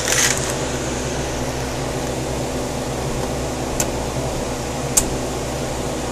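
Steady mechanical hum of aquarium equipment, with two short sharp clicks a little past the middle.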